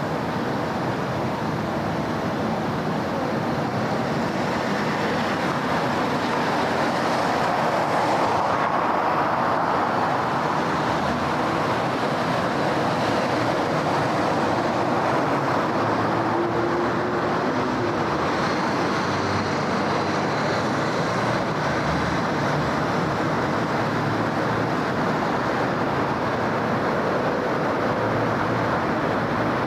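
Steady city road traffic: the tyres and engines of passing vehicles blend into a continuous hiss, which swells a little about a quarter of the way in.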